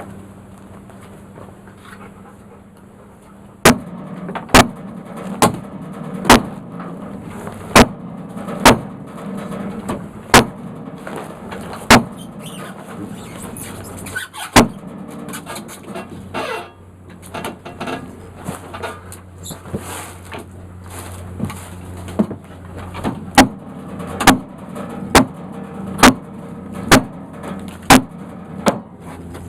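Sawmill running steadily as it cuts through a black walnut log. From about four seconds in, sharp loud clicks sound over it roughly once a second, about twenty in all.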